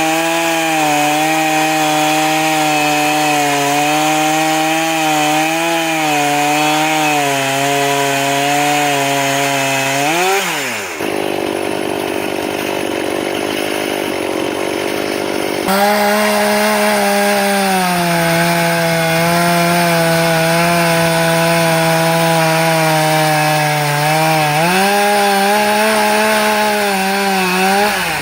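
A sawmill running: a loud, steady machine hum with a slight waver. About ten seconds in it sags and falls in pitch, then gives way to a few seconds of rougher, noisier sawing sound. The hum then returns at a higher pitch, dips again and falls once more near the end.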